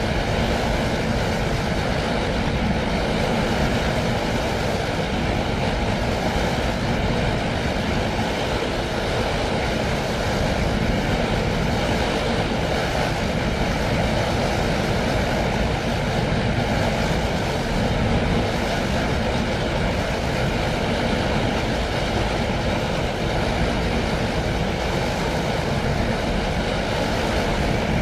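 Designed sci-fi energy-flux sound effect: a hushing, wave-like electronic drone that swells and eases slowly with a steady low rumble underneath.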